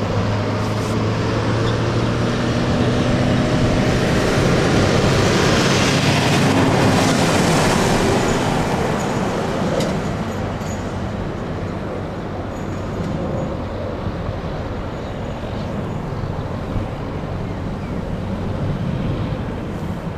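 Road traffic passing close by, with heavy vehicles including a bus and a container truck. The noise swells to its loudest in the middle and eases off after about halfway, over a steady low hum.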